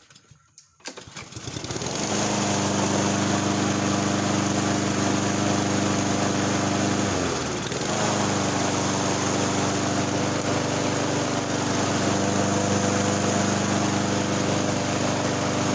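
Lawnmower's small engine starting about a second in and then running steadily at speed, the sign that the repair with a newly replaced spark plug has worked. Around the middle the engine speed sags briefly and picks back up.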